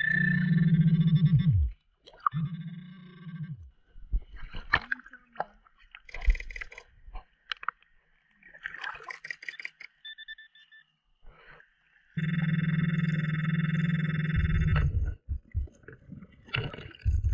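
Underwater metal-detecting pinpointer buzzing in three stretches, signalling metal in the pond bottom; each is a steady buzz that sags in pitch as it cuts off. Water gurgles and splashes, with scattered clicks, in between.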